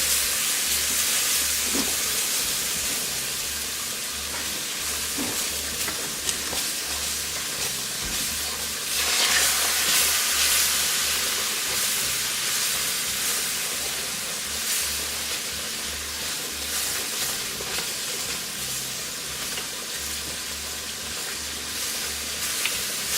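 Hot butter-and-flour roux sizzling and hissing in a pan as half-and-half is poured in slowly and stirred; the hiss swells about nine seconds in.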